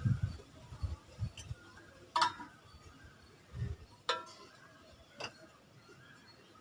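Three sharp metallic clinks with a short ring, about two seconds in, four seconds in and five seconds in, among a few soft knocks: metal parts and tools being handled on a dismantled jet pump.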